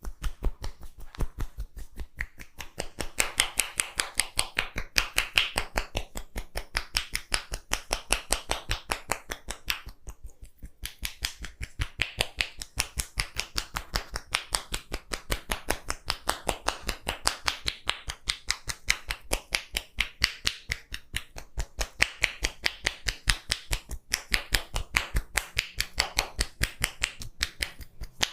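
Massage hands striking rapidly in a head-massage tapping routine: a fast, even run of sharp clicks, several a second, with a short break about ten seconds in.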